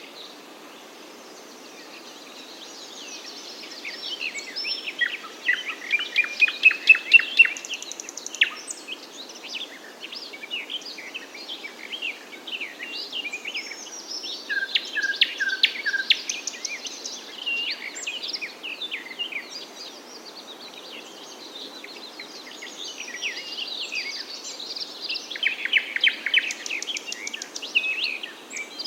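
Several songbirds chirping and singing together in quick overlapping calls and trills, over a steady background hiss. The calls thin out briefly at the start, then build to a dense burst of rapid chirps a few seconds in.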